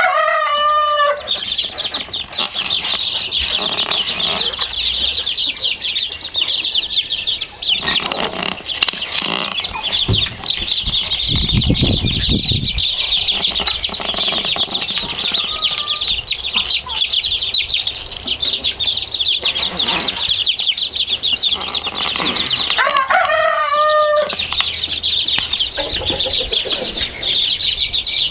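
A pen of about fifty young chicks peeping constantly in a dense, high-pitched chorus. A louder call stands out near the start and again about twenty-three seconds in, and there is a brief low rumble about halfway through.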